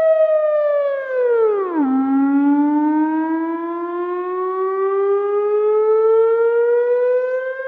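Synthesized alarm siren: a single pitched, overtone-rich tone that slides down, dropping steeply to a low point about two seconds in, then climbs slowly and evenly back up.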